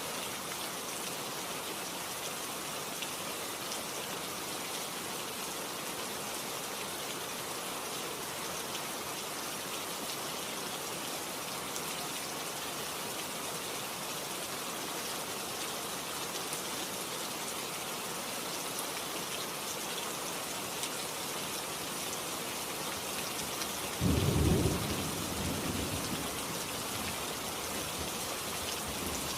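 Steady heavy rain hissing and pattering, with a single loud crack of thunder rumbling in near the end and dying away over a couple of seconds.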